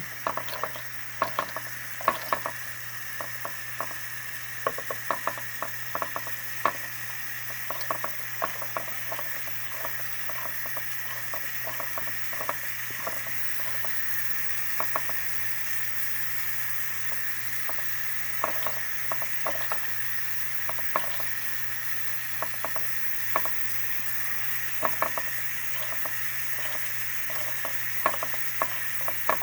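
Steam hissing steadily from an Empire B42 twin-boiler model steam engine as its boilers come up to pressure, with its safety valve letting off. Irregular sharp crackles and spits sound throughout.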